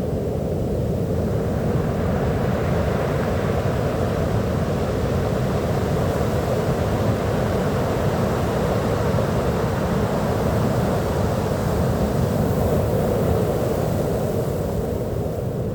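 Sea waves washing on a beach: a steady rushing surf that swells a little a couple of seconds in and again near the end.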